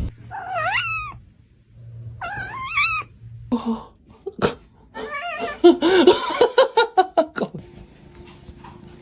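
A cat meowing and yowling: two drawn-out meows, a few sharp knocks, then a louder run of quick, wavering yowls that stops about a second and a half before the end.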